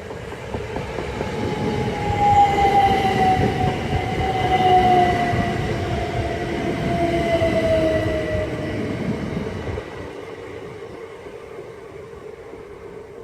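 Class 387 Electrostar electric multiple unit arriving and slowing, with the whine of its traction motors falling steadily in pitch over the rumble of its wheels. The sound swells, then dies down about ten seconds in as the train draws to a stop.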